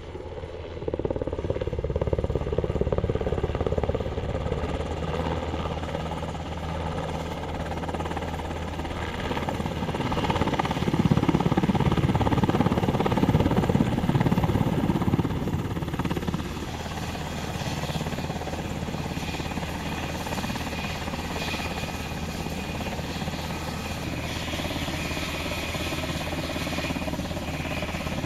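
UH-60 Black Hawk helicopter's rotor and twin turboshaft engines running, growing louder as it comes in close to hover and land. About 16 seconds in the sound drops suddenly to a steadier running level with a thin high turbine whine, the helicopter turning on the ground while it is refuelled.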